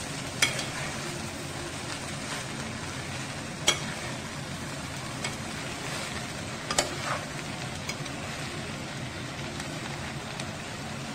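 Chicken egg fried rice being stirred in a hot non-stick pan: a steady sizzle, with a metal spoon knocking sharply against the pan a few times as the rice is mixed through.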